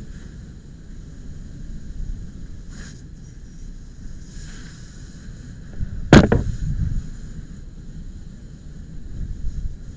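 Low rumbling wind noise on the microphone, with one sharp bang about six seconds in.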